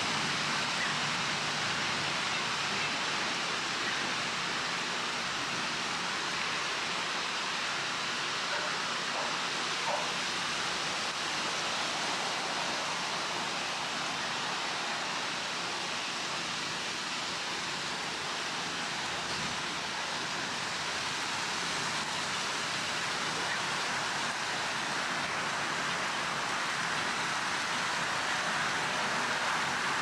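Steady breeze rustling through tree foliage and fallen leaves, an even hiss that swells slightly near the end.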